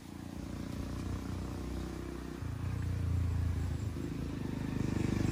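A small engine running steadily, getting louder, with a step up about halfway through.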